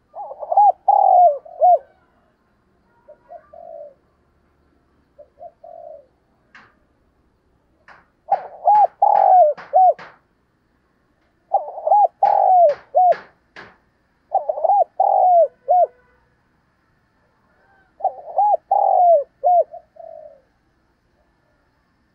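Spotted dove cooing: about seven phrases of three or four notes each, some short and some longer, with pauses of one to two seconds between.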